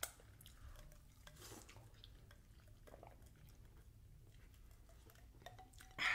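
Faint eating sounds at the table: fingers licked, meat pulled from a turkey leg, chewing and sips of water from a glass, with soft clicks and rustles and a short louder sound near the end.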